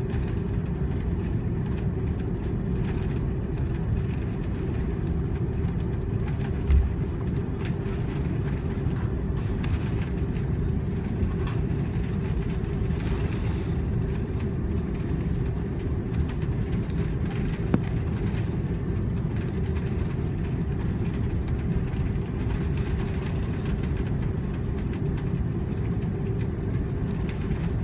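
Cabin noise inside an Airbus A330 taxiing: a steady low rumble of engines and rolling wheels with a constant hum. Faint knocks and rattles come through, and there is one sharp thump about seven seconds in.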